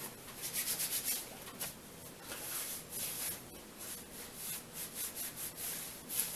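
Hands being wiped and rubbed together with a wet moist towelette: runs of quick, soft, swishing strokes.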